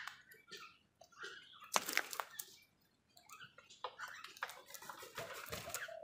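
House crows feeding from a plastic bowl: a scatter of sharp beak taps and clicks with short rustling bursts, busiest about two seconds in and again near the end.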